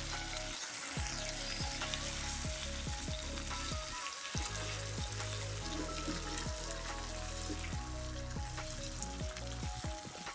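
Beef offal sizzling as it is stir-fried in a pan: a steady frying hiss with scattered small clicks.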